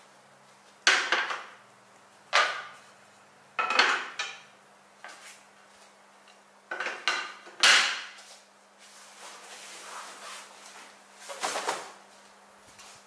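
Wooden slat table-top panels being set into a metal-railed camping table frame: a run of sharp wooden clacks and knocks, irregularly spaced a second or more apart, with the loudest near the start and around the middle.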